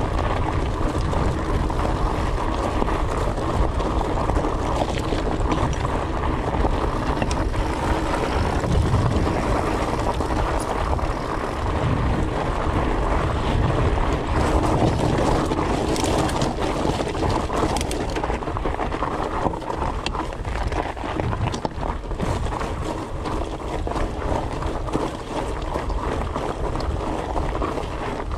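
A fat bike's 4.8-inch Maxxis Colossus tyres rolling over rocky gravel singletrack: a steady, dense rumble with scattered clicks and rattles from the bike, and wind buffeting the microphone.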